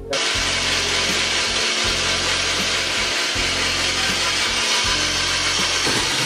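Electric drill running steadily as it spins a serrated coconut grater head, scraping and shredding coconut flesh with a loud, continuous rasping over the motor's hum. It cuts in suddenly at the start.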